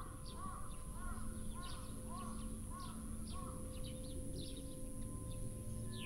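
Birds calling over and over, about two short calls a second, dying away about halfway through, over a faint steady drone.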